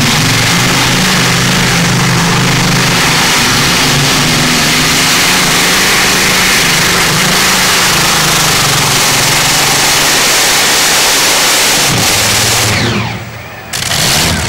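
Modified pulling tractor with twin Rolls-Royce Griffon V12 aero engines running at full power under load on a pull, a loud steady blare of engine noise. Near the end the engines are cut and wind down with falling pitch, then loud noise comes back about a second later.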